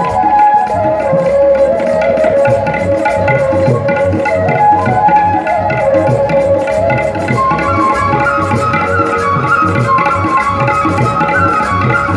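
Music: a melody of held notes that glide up and down, over a fast, steady drum beat.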